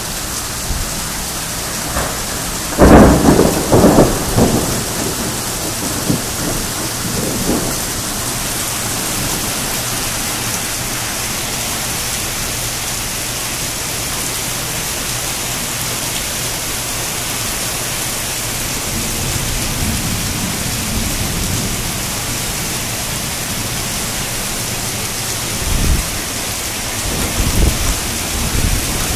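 Heavy rain falling steadily during a severe thunderstorm, with loud rumbles of thunder about three seconds in and again near the end.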